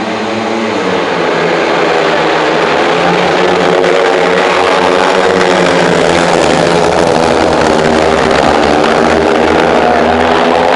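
Speedway motorcycles' single-cylinder 500 cc methanol engines racing at full throttle as the pack leaves the start and runs round the track. Several engine tones slide up and down as the riders accelerate and back off through the bends, and the sound swells over the first couple of seconds.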